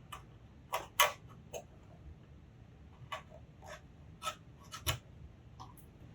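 A hand carving chisel cutting into wood in short, irregular strokes, each a sharp scrape or click, about eight in all, the loudest about a second in.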